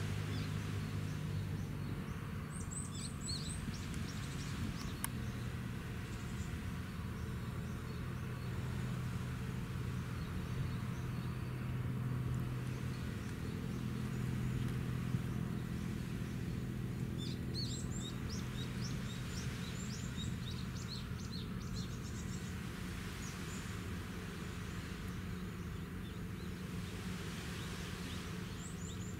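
A steady low machinery drone, with small birds chirping in short runs of quick high chirps a few seconds in, again through the middle, and near the end.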